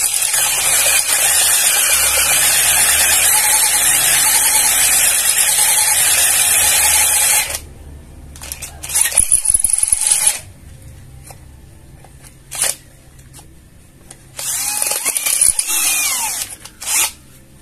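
Kamolee 10 mm brushless cordless drill, its motor rewound for more torque, boring with a twist bit into steel plate. It runs steadily under load for about seven and a half seconds, then stops; a few shorter bursts and clicks follow.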